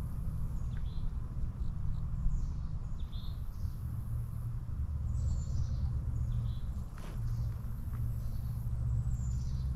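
Wild birds chirping outdoors in short calls every second or two, over a steady high insect drone and a low rumble.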